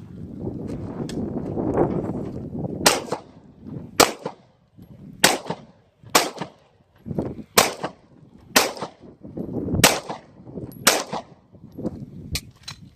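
Pistol shots fired one at a time at a steady pace, about one a second, eight loud shots in all, with a couple of fainter cracks near the end. Before the first shot there are a couple of seconds of low, rough rustling noise.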